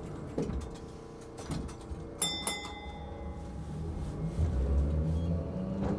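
Toden Arakawa Line tram departing a stop: two quick rings of a bell, a ding-ding about two seconds in, then the low hum and rumble of the tram's motors building as it starts to move.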